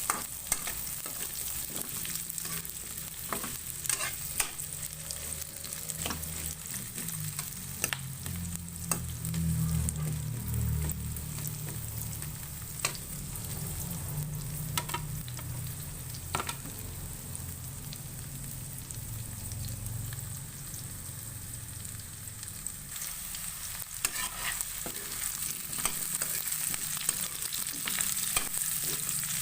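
Garlic sizzling in hot oil in a pan while it is stirred, with a steady hiss and the utensil now and then clicking against the pan.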